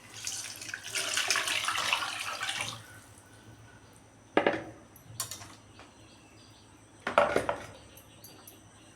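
Tamarind rasam liquid poured into a pan of fried spices, splashing for about two and a half seconds. Then a few clinks and knocks of utensils against the pan.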